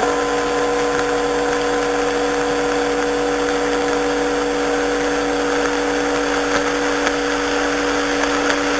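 AM radio reception on a Siete Mares receiver: static hiss with several steady tones held over it, as heard between stations when no programme is on the air.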